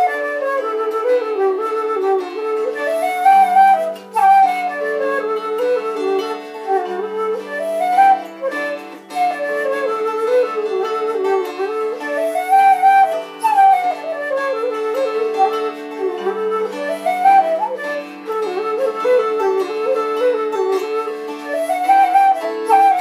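An Irish jig played on a wooden Irish flute, its quick melody running in rising and falling phrases, with a small harp plucking a lower accompaniment.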